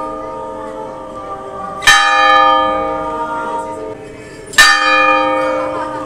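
Church bell struck twice, about three seconds apart, each stroke ringing on with a cluster of tones and fading slowly under the next; rung to call people to Christmas Mass.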